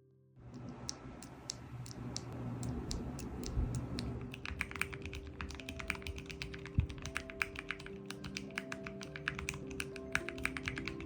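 Typing on a mechanical keyboard: a run of key clicks that comes much faster from about four seconds in, over background music.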